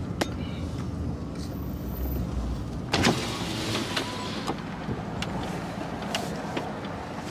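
Car running at low speed while a power window motor lowers the side window. A sharp knock about three seconds in is the loudest sound.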